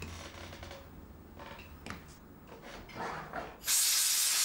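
Compressed air hissing steadily as it blows a freshly rinsed in-the-ear hearing-aid shell dry. It switches on suddenly near the end, after a few faint handling rustles.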